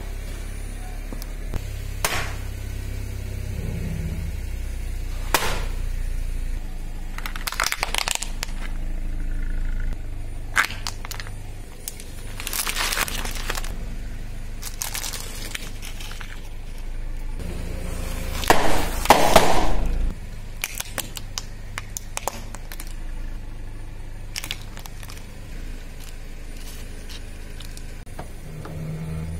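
A car tyre rolling slowly over and crushing a series of objects (toilet paper rolls, then a plastic ice tray full of water beads), with a low rumble for the first several seconds and a string of sharp cracks and crunches. The loudest, densest crunching comes a little past the middle.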